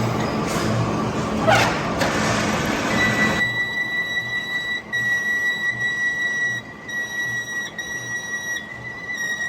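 Metal cutting on a manual machine, at first a rough noisy cutting sound, then from about three seconds a steady high-pitched squeal from the cut. Background music with a steady beat plays under it.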